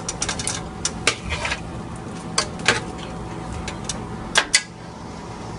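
Long metal spoon clinking and scraping against a large aluminium pot as the stock in it is stirred: irregular light clinks, with two sharper knocks about four and a half seconds in.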